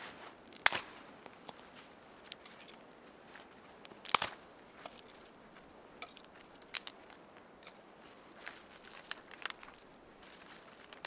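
Thin branches and twigs snapping as firewood is broken up by hand. There are a handful of sharp snaps, the loudest about four seconds in, with crackling and rustling of twigs between them.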